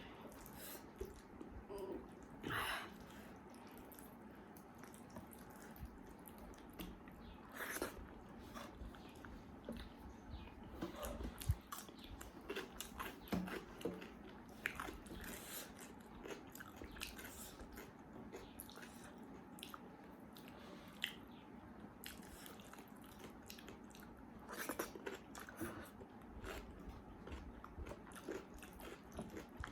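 A person chewing and eating close to the microphone, with scattered short mouth clicks and smacks.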